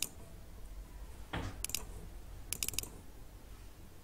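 Computer mouse clicking: a single click at the start, a quick double-click about a second and a half in, and a rapid run of several clicks near three seconds, with a short dull knock just before the double-click.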